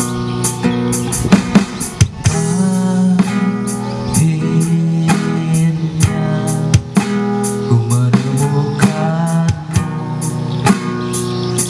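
Instrumental intro of a pop ballad played on acoustic guitar with a drum kit, with sustained chords and regular drum hits.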